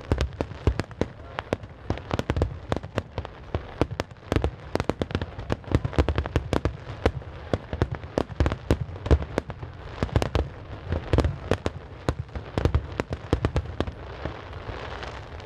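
Fireworks display: a rapid barrage of shells bursting, several sharp bangs a second overlapping with deep booms. Near the end the bangs thin out and a steady hiss rises.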